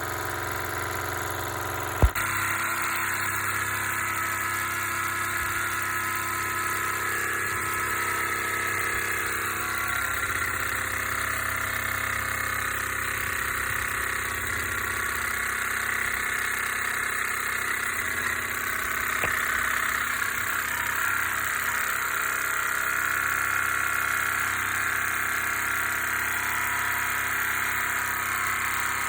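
Mamod SP5 toy live-steam stationary engine running steadily under steam. A sharp click comes about two seconds in.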